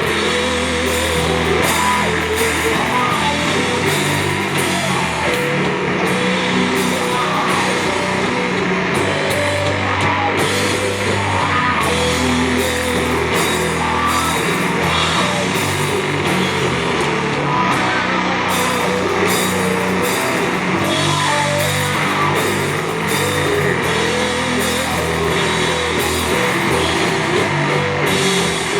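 Doom metal band playing live and loud: heavy distorted guitars and bass holding slow low notes for a few seconds each, with drums and frequent cymbal crashes.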